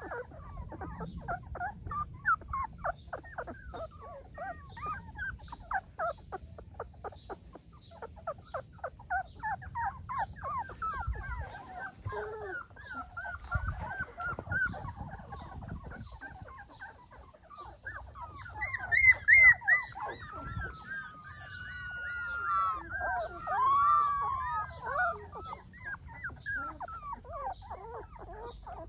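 Young golden retriever puppies whimpering and squeaking: many short, high cries in quick succession. About two-thirds of the way through comes a louder run of longer whining cries that slide up and down in pitch.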